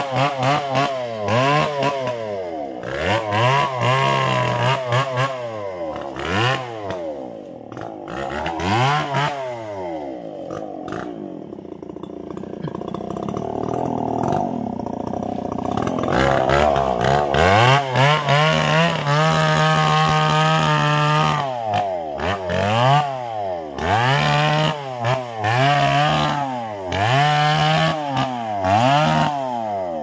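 Two-stroke chainsaw engine revved in repeated bursts, its pitch rising and falling about once a second. About ten seconds in it drops to a slower, quieter run for several seconds, then is held at high speed for a few seconds before the bursts resume.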